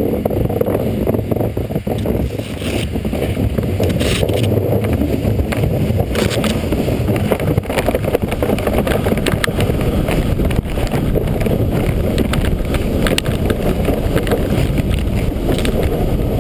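Kayak hull sliding down a snowy slope: a steady rumbling scrape with scattered crunches and clicks from the snow, and wind buffeting the helmet-mounted microphone.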